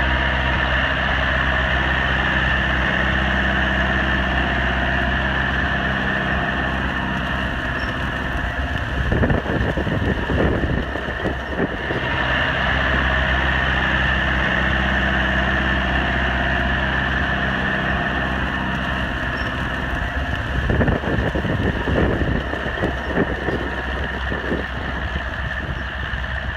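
Allis-Chalmers 6080 tractor's diesel engine running steadily under load while pulling a moldboard plow. Wind buffets the microphone twice for a few seconds at a time.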